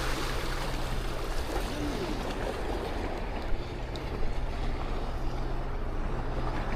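Fishing boat's engine running steadily under way, a low even hum, with water washing past the hull and wind on the microphone.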